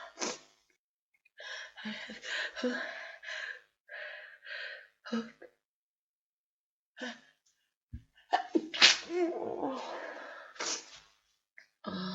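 A woman's sneeze build-up while she has a cold: several short noisy breaths, then a loud wet sneeze about eight and a half seconds in, followed by more breathing.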